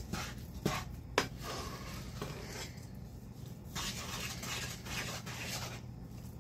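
Wooden spoon stirring and scraping a thick, lumpy mix of brown sugar, butter and corn syrup in a saucepan, with two knocks of the spoon against the pot about a second in. A low steady hum runs underneath.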